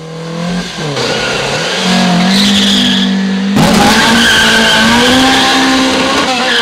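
Air-cooled VW Beetle engines held at high revs, with tyres squealing as the cars launch off a drag-race start line. The sound cuts abruptly to another car's run about three and a half seconds in.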